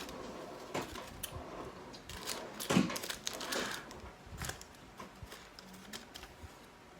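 Irregular clicks, taps and light rustles of someone eating takeout wings and fries and handling the food and its packaging, with one sharper knock about three seconds in.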